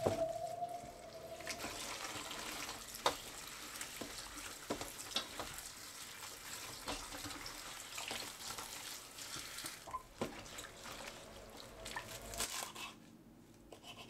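Tap water running into a metal bowl of leafy greens in a stainless steel sink, with small splashes and clicks as hands rub the leaves clean. The running water stops about a second before the end.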